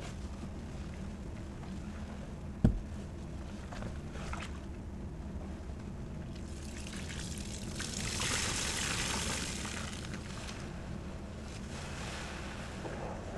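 Wet foam sponges soaked in soapy Pinalen cleaner solution being pressed and squeezed by hand, liquid squelching and dribbling out of them. A single sharp knock comes about two and a half seconds in, and midway through the squeezing swells into a louder fizzing hiss of suds and liquid pressed out.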